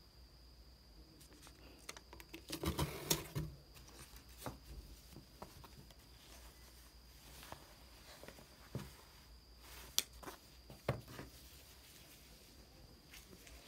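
Faint rustling and crinkling of hands handling a corduroy tote bag and its plastic tag, with a denser burst about three seconds in and a few sharp clicks later on.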